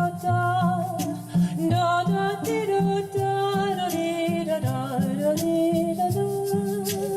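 Background music: a wavering sung or hummed melody over a steady stepping bass line, with light percussion ticks.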